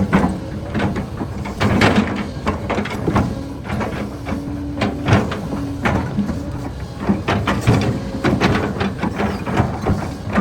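Kobelco excavator's engine running as it digs, with frequent clattering and scraping of soil and stones in the bucket. A steady tone holds briefly about four seconds in.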